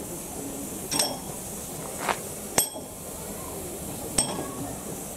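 Four sharp metallic clinks, each with a brief ring, about a second apart and the third the loudest, over a steady hiss around a standing steam locomotive.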